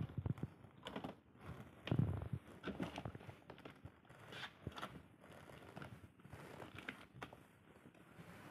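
Cardboard boxes rustling, scraping and knocking irregularly as cats shift about on them, with a louder knock about two seconds in.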